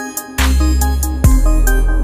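Electronic background music with synth notes over a heavy bass line; the bass comes back in about half a second in.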